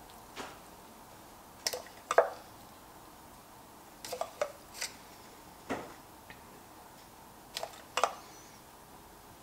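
About nine light clinks and taps of kitchenware, irregularly spaced and loudest a little over two seconds in, as grated cheese and breadcrumbs are shaken out of a glass bowl over mac and cheese in an enameled cast iron pan.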